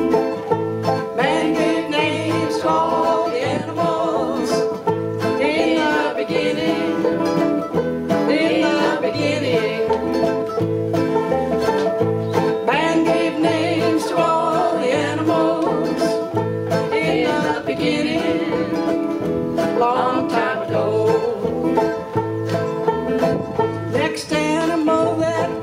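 Acoustic string band playing a country-bluegrass tune: mandolins and acoustic guitars picked and strummed together over a steady beat.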